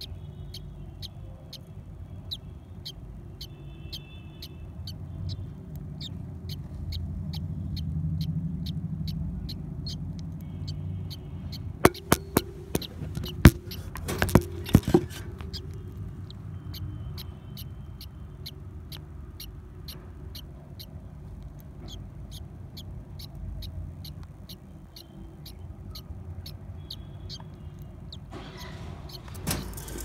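Faint short chirps from budgerigars in a clay-pot nest box, over a steady ticking of about three clicks every two seconds. A cluster of sharp knocks comes near the middle and handling noise near the end.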